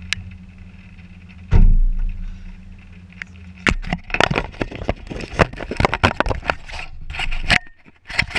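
Handling noise of a helmet-style action camera being unclipped and lifted off a vehicle's hood mount: a run of sharp clicks, knocks and rubbing against its housing, with one heavy thump about a second and a half in. Under it a vehicle engine idles steadily, fading out near the end.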